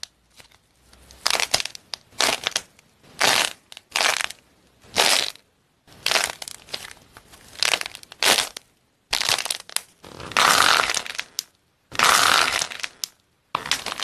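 Hands squeezing and tearing apart fake fruit with a painted shell and crumbly white filling: a dozen or so separate bursts of crunching and crackling with short pauses between, the longest and loudest about ten and twelve seconds in.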